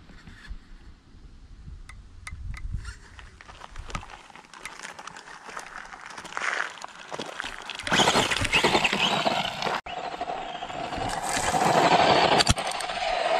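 Footsteps and handling noise on gravel, then from about eight seconds in a much louder crunching and spraying of gravel as a Tamiya DT-01 electric RC buggy drives and slides across it.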